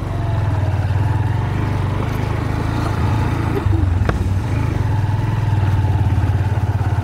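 Honda Hornet motorcycle engine running steadily under way, with one short click about four seconds in.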